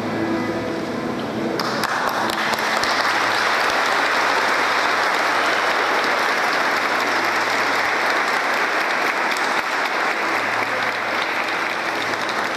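Congregation applauding, the clapping breaking out suddenly about a second and a half in and then holding steady.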